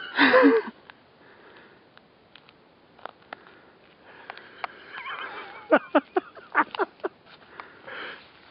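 A person laughing in short breathy bursts, once loudly at the start and then in a quick run of about six bursts past the halfway point. Between them come a few faint crunching clicks of boots stepping on thin new lake ice.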